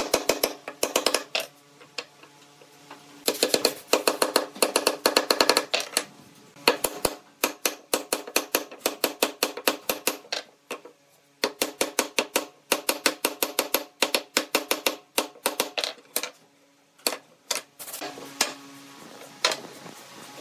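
Hammer blows on wood, knocking a wooden crosspiece down onto the tenons of a frame's uprights to seat the joints: quick runs of sharp knocks, several a second, broken by short pauses, each with a short ringing note from the wood.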